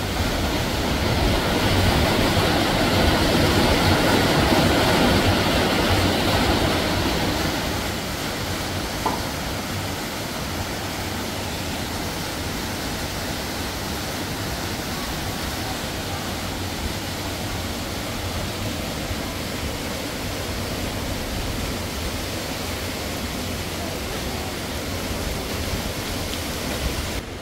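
Steady rushing splash of a small waterfall falling into a rock pool, louder for the first several seconds.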